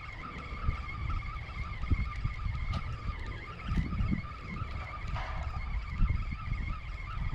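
Wind buffeting the microphone in gusts, a low rumble that rises and falls, with a steady high-pitched drone in the background.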